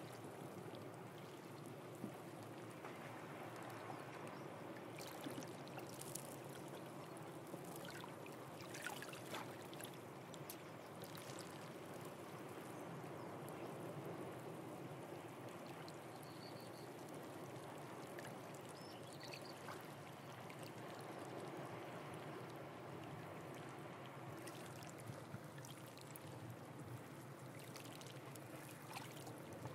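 Seawater trickling and lapping among the rocks of a tide pool: a steady faint wash with scattered drips and small splashes.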